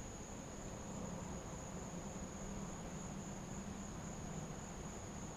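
Steady, high-pitched insect trill, faint, with a low hum and a light hiss underneath.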